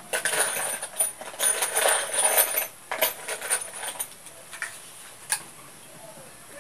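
Irregular scraping and rasping of carpentry work on wood, dense for about three seconds, then a few scattered sharp knocks.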